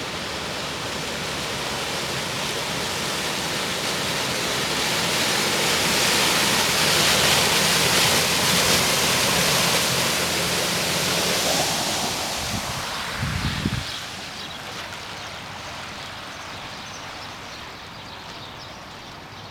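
Floodwater rushing and splashing around a Jeep Wrangler as it drives through, with the engine running low underneath. The water noise builds to its loudest in the middle. A brief low rumble comes about 13 seconds in, then the rush eases to a quieter wash.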